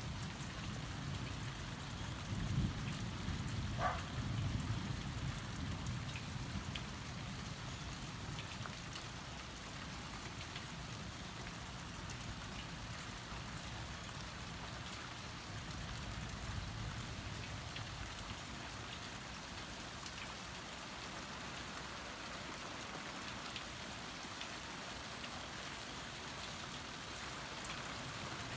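Steady rain falling, with a low rumble of thunder a few seconds in.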